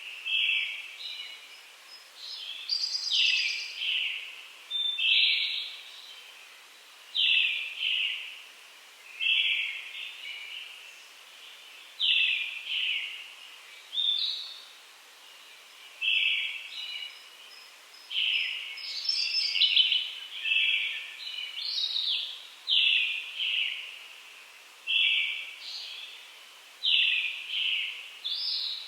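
Early-morning songbird song of brown-headed thrush and Japanese robin. One bird repeats short phrases of two or three notes about every two seconds, some ending in a thin higher note. A higher, busier phrase cuts in about three seconds in and again about two-thirds of the way through. The notes ring on with echo.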